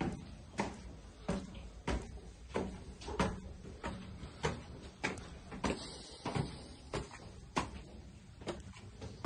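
Footsteps climbing bare concrete stairs, a steady walking pace of about one and a half steps a second, each step a short sharp tap.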